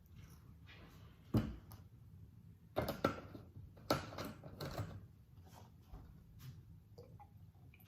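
A few scattered knocks and clunks of kitchen items being handled and set down, the loudest about a second and a half in and around three seconds in.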